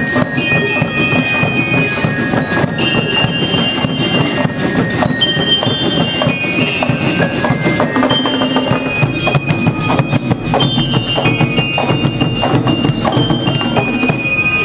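School marching band (banda de guerra) playing: drums beat steadily under a bright, bell-like melody from mallet-struck metal instruments.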